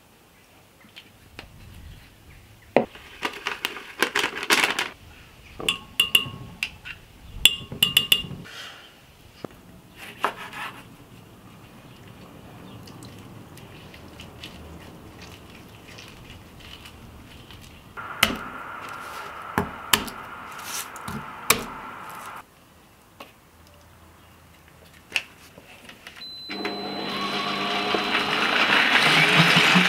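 Clicks and knocks of bottles and utensils against a glass blender jar, then several seconds of scraping as cheese is grated over it. Near the end a stand mixer's blender attachment starts up and its motor grows louder as it blends the Caesar sauce.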